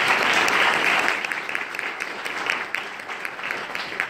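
Audience applauding after a presentation: a dense burst of clapping for about the first second, then thinning out into scattered separate claps.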